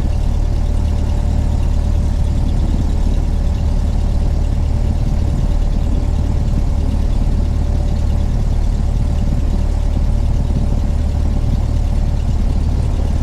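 Single-engine piston airplane engine running steadily at low taxi power: a constant low drone with a faint steady hum above it.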